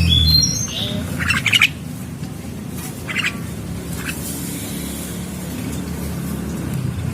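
Javan mynas calling: a few short high whistled notes at the very start, then harsh raspy squawks about a second in, again near three seconds and around four seconds, over a steady low hum.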